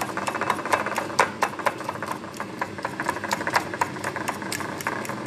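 Metal spoon beating raw eggs in a ceramic bowl, clicking rapidly and regularly against the bowl, several strikes a second.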